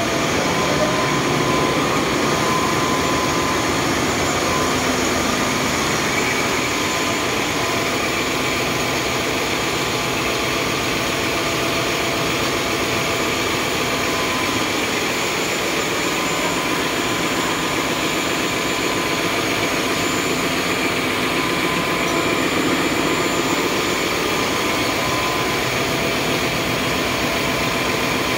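Steady, loud din of running machinery in a ship's engine room, a dense even noise with a few steady hum tones running through it.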